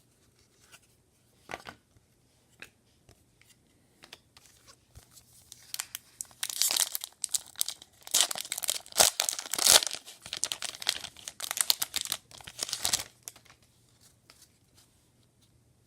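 Wrapper of a trading-card pack being torn open and crinkled by hand, a dense crackling rustle lasting several seconds, after a few light taps.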